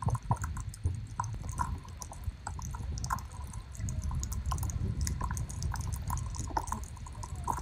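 Water sloshing and bubbling against a phone in a plastic waterproof cover as it moves underwater and through the surface, muffled, with many small clicks and pops.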